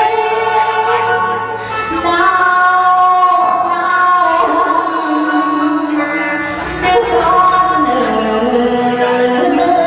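A woman singing into a handheld microphone over musical accompaniment, holding long notes and sliding between pitches.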